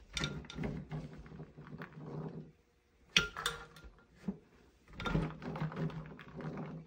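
Metal spoon scraping through soaked soybeans in a plastic colander and tipping them into a glass blender jar: beans and spoon clattering against the glass in a few bouts of rattling clicks.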